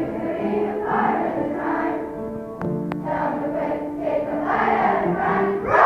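A large group of children singing a song together as a choir. Two short clicks come about halfway through.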